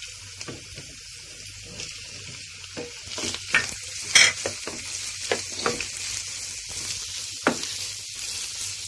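Chicken pieces, onion and green capsicum sizzling in oil in a non-stick frying pan while a wooden spatula stirs and scrapes them around. The sizzle grows louder from about three seconds in, with short sharp scrapes and knocks of the spatula, the strongest about four seconds in.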